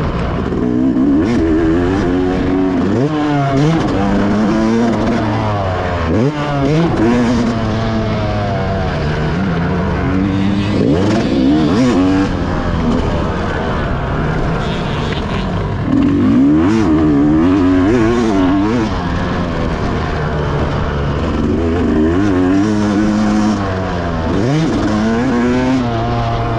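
Yamaha YZ motocross bike engine revving hard under throttle, its pitch repeatedly climbing and then dropping off as the rider shuts off and shifts around the track.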